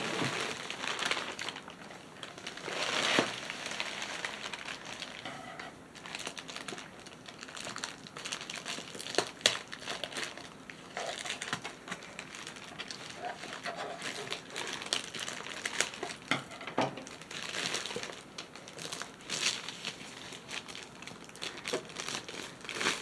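Plastic poly mailer bag and clear plastic wrap crinkling and rustling as they are handled, with scattered short clicks; the loudest crinkle comes about three seconds in.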